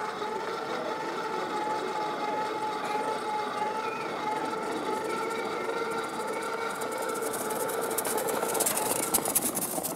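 An engine running steadily with a constant whine. A crackling grows over it in the last few seconds.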